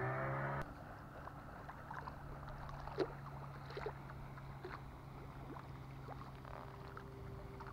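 Motorboat engine running, a pitched hum that cuts off abruptly about half a second in, leaving a faint, low, steady drone with scattered light ticks.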